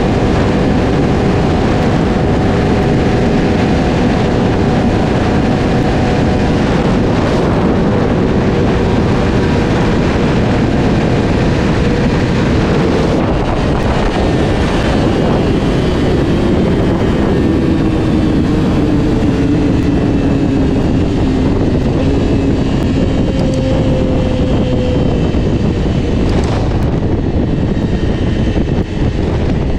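Sport motorcycle engine running under way at speed, mixed with heavy wind rush on the microphone; the engine note drops slowly about halfway through.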